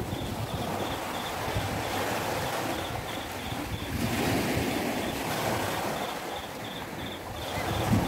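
Small waves washing up onto a sandy beach, the surf swelling and easing every few seconds, with wind rumbling on the microphone.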